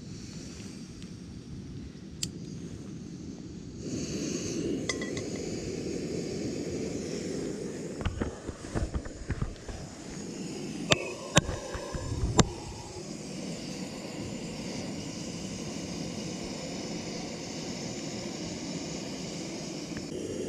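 Plastic bags and small seasoning bottles being handled: rustling, then three sharp clinks about halfway through, over a steady rushing background noise.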